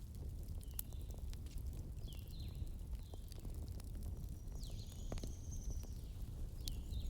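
Wood fire crackling, with irregular sharp pops and snaps over a low steady rumble. Several short high chirping whistles are mixed in, and one longer high whistle comes about halfway through.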